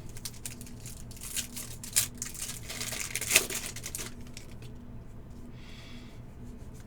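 Trading card packs and cards being handled: a run of crinkling and small clicks for about four seconds, then much quieter, over a faint steady hum.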